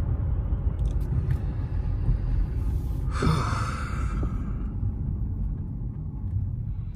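Infiniti G37's VQ37 V6 engine and road noise heard from inside the cabin, a steady low rumble that eases off towards the end. A brief falling whoosh comes about three seconds in.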